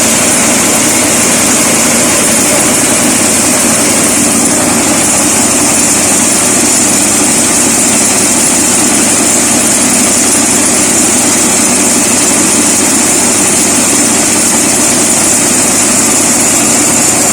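Mini combine harvester running at a steady, unchanging level, its engine and machinery giving a constant drone with a high hiss over it.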